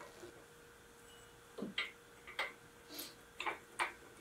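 Quiet, irregular clicks and taps of metal on metal, about six in all, as tools and new brake pads are worked at a Subaru front brake caliper during a pad change.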